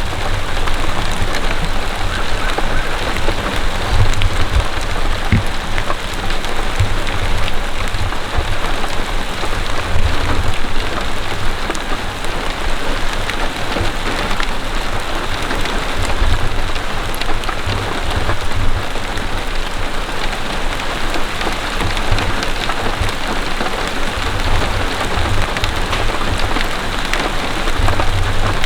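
Steady heavy rain falling, an even hiss throughout, with low rumbles coming and going underneath.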